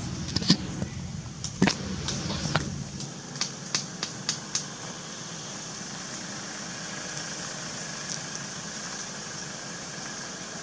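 Steady outdoor background hiss, with a low rumble that stops about three seconds in and about ten sharp clicks or snaps in the first half.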